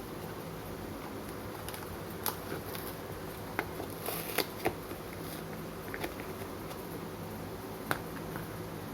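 Hands handling a smartphone's retail box and packaging: a few scattered clicks and taps and a brief rustle about four seconds in, over a steady low hum.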